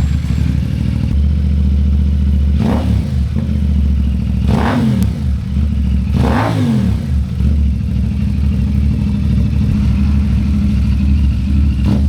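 CFMoto 450SR-S parallel-twin engine idling through a freshly fitted aftermarket Akrapovič-style carbon-tip slip-on muffler, blipped three times in quick rises and falls, then settling back to idle: an exhaust sound check.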